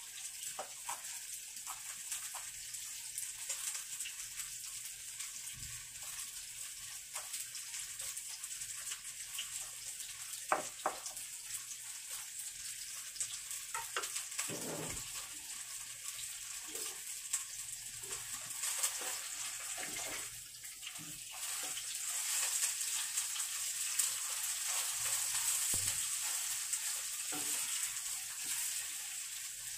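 Knife cutting vegetables on a plastic cutting board, with scattered knocks, over a steady hiss that grows louder about two-thirds of the way in.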